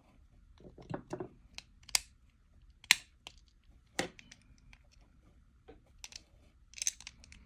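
Plastic housing of a Toyota remote head key being lined up and pressed together: scattered sharp clicks and taps as the back cover is fitted, the loudest about three seconds in.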